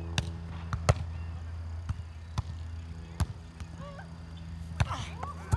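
Volleyball rally: sharp slaps of hands and forearms striking the ball, irregular and several seconds apart, over a steady low hum. Players' voices call out near the end.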